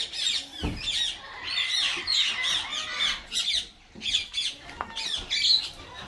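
Flock of budgerigars chattering: many quick chirps and warbles overlapping without a break.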